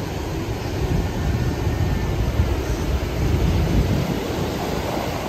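Sea waves breaking and washing up a beach in a steady rush of surf, with a low rumble of wind on the microphone.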